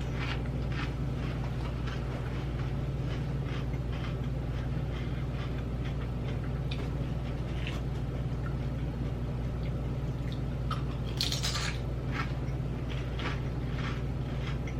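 Lay's dill pickle potato chips being bitten and chewed with irregular crisp crunches, and a louder, denser crackle about eleven seconds in. A steady low hum runs underneath.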